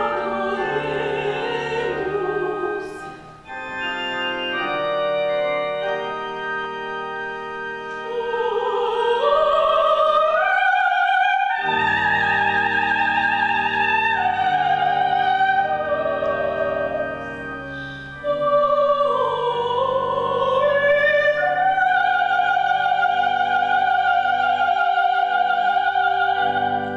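Soprano singing a classical-style solo with vibrato over sustained organ accompaniment. The voice climbs in phrases and ends on a long held high note over the last few seconds.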